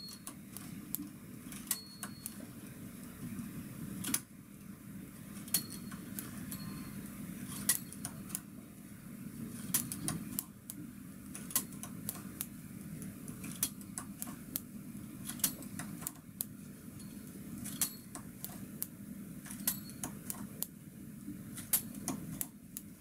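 A latch tool and metal knitting-machine needles clicking as stitches are bound off by hand on a single-bed knitting machine: irregular light metallic clicks, some close together, over a faint steady low hum.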